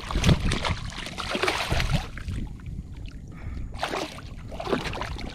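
A hooked redfish thrashing at the surface beside a kayak: irregular splashes and knocks, heaviest in the first two seconds and again about four seconds in.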